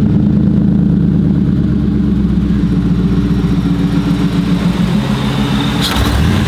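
The supercharged 5.4-litre V8 of a 2001 Ford F-150 SVT Lightning idling steadily through its dual exhaust, just after being started.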